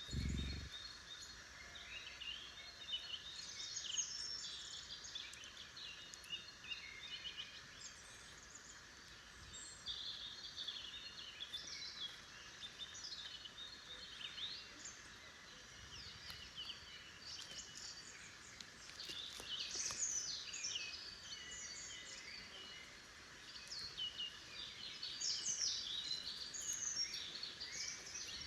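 Wild songbirds chirping and trilling, many short overlapping calls in bursts, over a faint steady hiss. A brief low thump right at the start.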